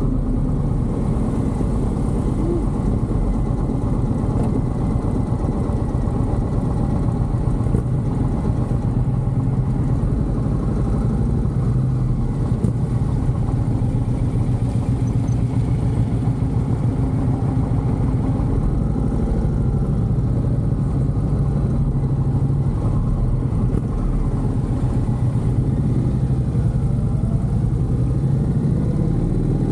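Indian V-twin cruiser motorcycle engine running steadily while riding, heard from a camera mounted on the bike, with road and wind noise. The engine note shifts a little near the end.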